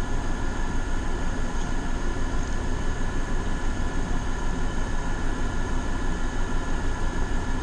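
Room air conditioners running: a steady hum with a low rumble, several constant tones and a fast, even throb.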